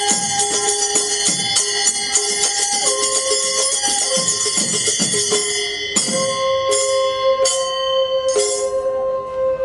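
Large brass hand cymbals (kartal) of a Manipuri Nupa Pala sankirtan group clashing in a fast, dense rhythm and ringing, with long held melody notes over them. About six seconds in the clashing thins to single strokes, and it stops near the end while a held note carries on.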